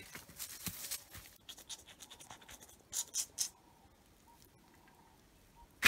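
Dry brush and twigs rustling and scraping: scattered scratchy crackles, with three short hissy scrapes about three seconds in, then a quiet stretch.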